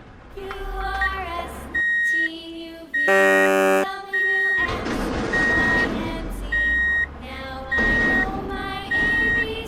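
Electronic sound effects from a battery-powered toy truck: a steady high beep repeating about once a second, like a reversing alarm, with a loud horn blast about three seconds in.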